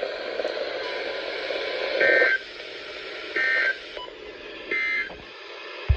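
Weather radio hiss, then three short bursts of EAS digital data tones warbling between two high pitches, each about a third of a second long and a little over a second apart: the end-of-message code that closes the weather radio's Required Weekly Test. A click comes at the very end.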